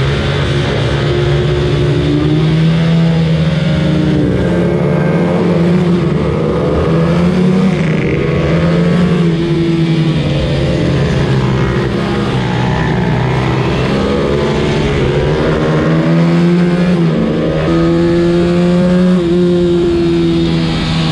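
125cc race minibike engine heard on board at racing speed, its revs rising and falling again and again through the gears and corners, with wind rushing over the microphone.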